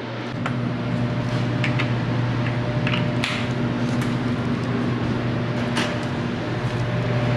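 Steady electric hum of a shop cooling fan running, with a few light knocks and clicks scattered through.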